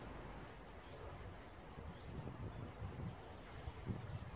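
A small bird chirping in the background, a quick run of short high chirps starting a little before halfway through, over low outdoor rumble. A brief soft bump near the end is the loudest moment.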